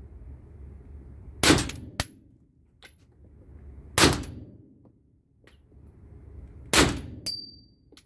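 Three shots from a Heckler & Koch P8 pistol firing 9mm full-metal-jacket rounds, about two and a half seconds apart, each echoing in an indoor range. Small metallic pings follow the shots as the spent brass casings land on the floor.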